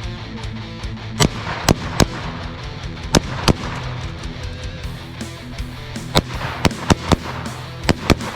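About a dozen gunshots at uneven intervals, some in quick pairs, over background rock music with electric guitar. The shots are the loudest sounds.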